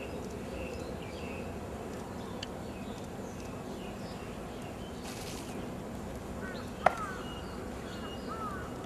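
Open-air ambience with birds chirping. About seven seconds in comes a single sharp knock: a drill boot stamp on tarmac as the officer turns about.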